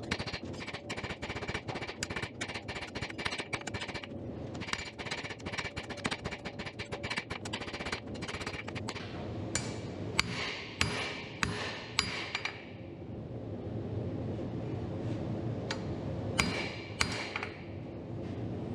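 Hand hammer striking a red-hot steel bar on an anvil: quick blows, about three a second, some with a short metallic ring, then a pause and a few more blows near the end. A steady low rushing noise runs underneath.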